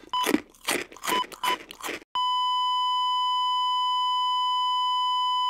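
Crunchy biting and chewing of dry, crumbly snack squares, with a few short paired beeps like a heart monitor. About two seconds in, the chewing stops and a steady, unbroken heart-monitor flatline tone sets in and holds.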